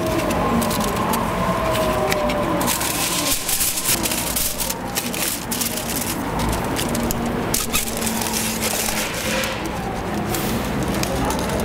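Busy street-market background noise, with frequent short crackles and clicks over a low steady hum.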